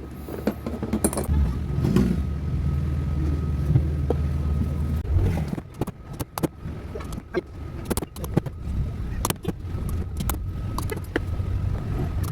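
Light clicks, clinks and knocks of metal and plastic parts as a rewound stand-fan motor is fitted back into its housing, coming thick and irregular in the second half. Underneath, a low steady hum runs for a few seconds and stops about five and a half seconds in.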